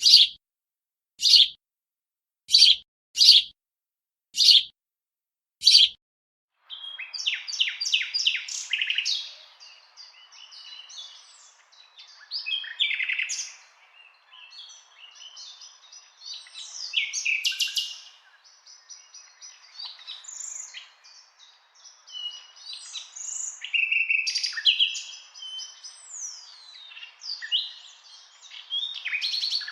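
Six short, separate chirps with silence between them, then from about seven seconds in, small songbirds singing and chattering together over a faint steady hiss: fast trills, rapid chips and rising and falling whistles.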